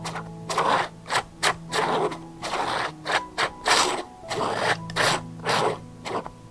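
Metal palette knife (Hwahong No. 011) scraping and spreading thick acrylic paint across a stretched canvas in quick, repeated strokes, about two or three a second. Soft background music plays underneath.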